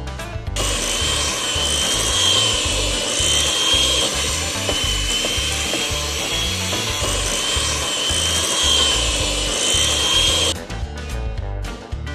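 Electric hand mixer running steadily, its beaters churning butter as condensed milk is poured in to make buttercream, with a wavering high motor whine. It cuts out about ten and a half seconds in and starts again at the very end.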